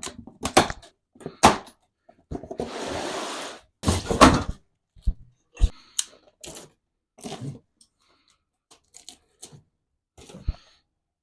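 Cardboard box being opened and unpacked: scattered knocks and clicks of the box and packed parts, with a tearing sound lasting over a second about two and a half seconds in.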